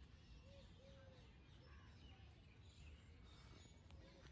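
Near silence: faint outdoor ambience with a few faint, short bird calls.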